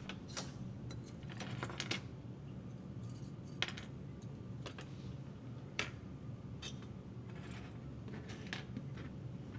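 Small plastic model-kit sprues and parts clicking and clattering as they are picked up, shifted and set down on a cutting mat: about ten light, irregular clicks, over a steady low hum.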